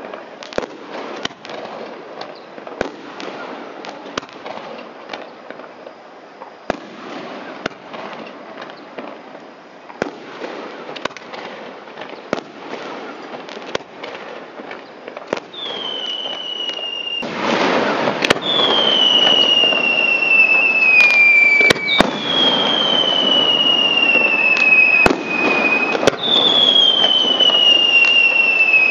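Fireworks display: scattered sharp bangs and crackles of bursting shells, turning louder and denser past the middle. From just past the middle, four long whistles follow one after another, each sliding slightly down in pitch.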